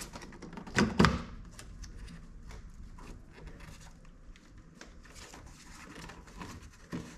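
Hand work on a car door's inner panel: two sharp knocks about a second in, then scattered small clicks and rattles of plastic parts being handled and moved.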